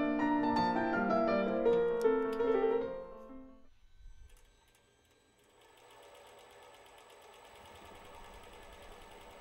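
Piano background music that fades out about three and a half seconds in. Then an electric vibrator motor with an eccentric weight on its shaft, bolted to a welded steel lathe frame, runs faintly and steadily with a fine, fast ticking, shaking the frame for vibratory stress relief.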